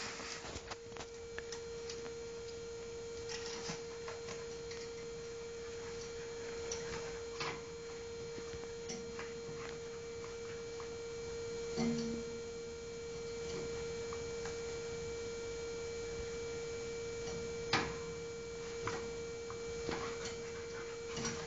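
A steady high-pitched electrical hum runs throughout, with scattered light clicks and scratches. There is a short low sound about twelve seconds in and a sharper click near eighteen seconds.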